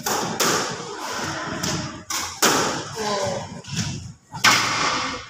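Squash ball hit back and forth in a rally: a series of sharp racket strikes and wall hits, each echoing off the court's walls.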